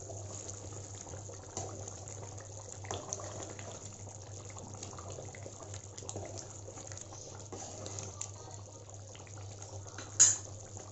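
Thick fish gravy simmering and being stirred with a spatula in a steel pot: soft bubbling and scraping over a steady low hum, with a sharp clink near the end.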